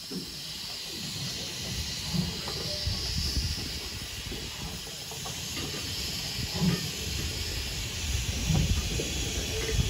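BR Standard Class 2 2-6-0 steam locomotive 78018 moving off slowly, steam hissing from its open cylinder drain cocks over a low rumble, with a few low thumps.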